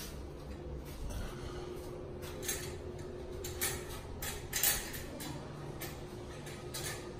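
Light clinks and clicks of metal and glass light-fitting parts being handled, with a few sharper clicks a little past the middle, over a faint steady hum.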